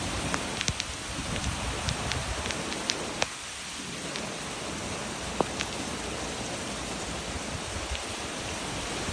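Heavy tropical-storm rain pouring down in a steady hiss, with scattered sharp ticks of drops striking close by.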